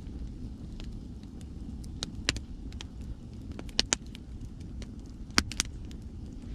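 Wood bonfire crackling, with sharp pops and snaps scattered through, the loudest a pair near the middle and another pair a little later, over a steady low rumble of ocean waves.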